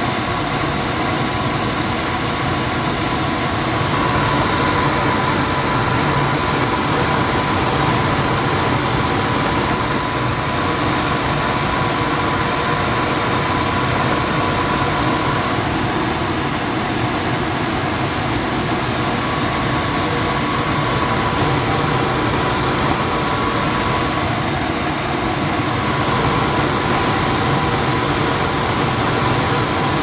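Gas furnace running: burners firing with the draft inducer and blower fans going, a steady rushing drone with a faint steady whine through it.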